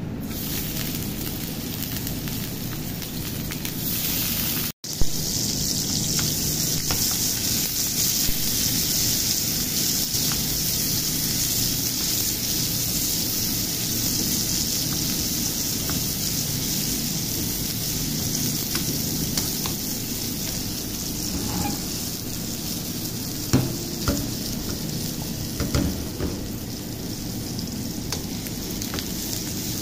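Chopped onions sizzling in hot oil in an aluminium frying pan, stirred with a wooden spatula, with a few knocks of the spatula against the pan in the later part.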